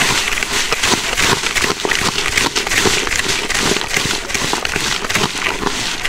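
Jhal muri (puffed rice mixed with onion, chilli and spices) being tossed and mixed by hand in a plastic bucket. The dry grains make a dense, continuous crackling rustle against the plastic.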